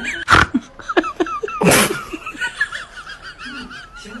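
A person laughing while cats play-fight, with two loud breathy bursts of laughter, one just after the start and one under two seconds in, and a wavering, giggling voice between them.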